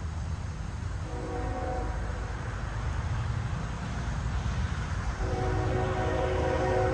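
Freight train's locomotive horn sounding a multi-note chord: a short blast about a second in, then a long, louder blast starting about five seconds in, over the steady rumble of the passing train.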